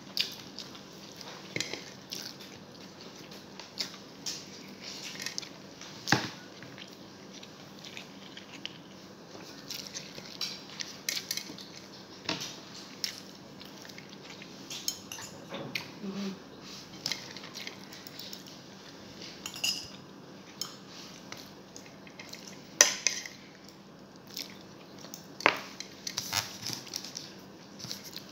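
Eating at a plate: a utensil and fingers tapping and scraping on a ceramic dinner plate in irregular small clinks, with a few sharper clinks scattered through.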